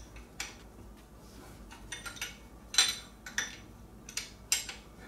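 Irregular metallic clinks and clanks of hand tools on metal as bolts on the rear turbocharger of an RB26DETT engine are loosened, the loudest clank about three seconds in.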